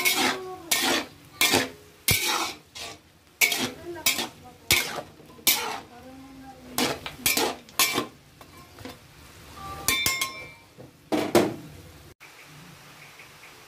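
A metal spatula clanking and scraping against a large metal wok in repeated strokes while stirring chopped chicken, onions and garlic frying in oil, with a light sizzle underneath. The stirring stops abruptly about a second and a half before the end.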